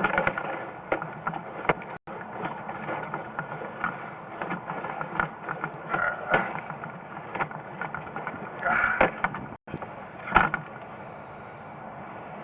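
Sewer inspection camera's push cable being pulled back through a drain line: irregular clicks, knocks and rattles over a steady noisy background, with louder scraping bursts about six, nine and ten seconds in.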